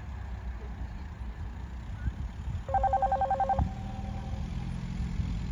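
Electric bell rings in a rapid trill for about a second near the middle, then one tone lingers faintly and fades, over a low steady rumble. It is the dressage judge's bell from the judge's car, the signal for the rider to begin the test.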